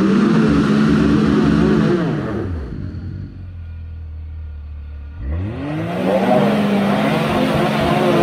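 Can-Am Maverick X3 UTV engine revving under throttle. Its pitch holds high, falls away about two seconds in to lower running, then climbs again a little after five seconds and stays high.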